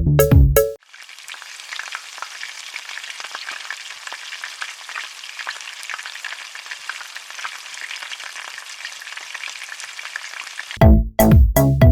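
Samosas deep-frying in hot oil: a steady crackling sizzle. A music jingle plays briefly at the start and comes back near the end.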